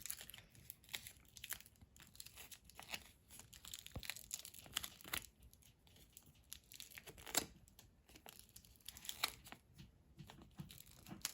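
Adhesive tape being pulled off and wrapped around plastic mesh tubing on a stick: faint, irregular crinkling and tearing, with a few sharper crackles.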